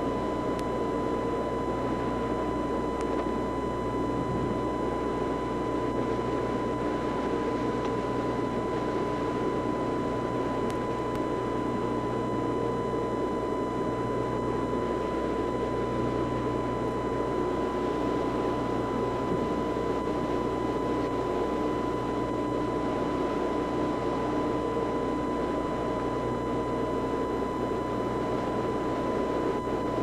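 Steady drone of a large boat underway: engine rumble mixed with rushing wind and water, with a thin, steady high tone over it.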